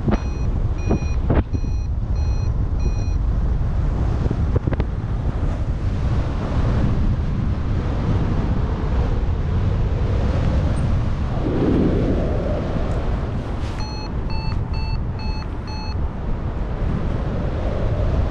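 Steady wind rush from the airflow over the microphone of a paraglider in flight. A variometer beeps in short repeated tones, a run of about five near the start and a quicker run about two-thirds of the way through, its signal that the glider is climbing.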